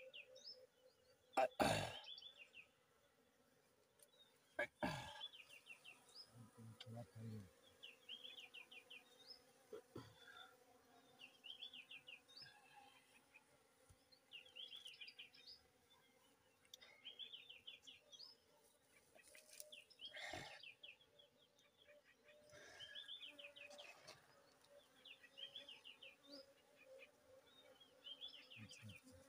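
Faint steady hum of wild bees at a hive in a tree hollow, with a bird's short chirping phrase repeating about every two seconds. A few sharp knocks against the tree come in, at about a second and a half, about five seconds and about twenty seconds in.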